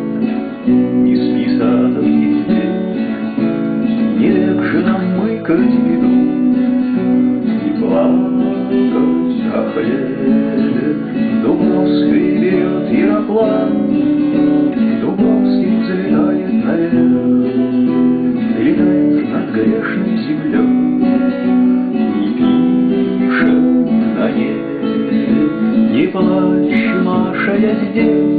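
Acoustic guitar strummed steadily through changing chords, with no voice.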